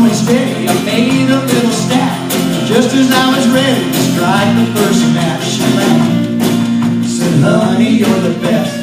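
Live country band playing an upbeat song: strummed guitar, a steady beat of percussion hits and a male voice singing the verse.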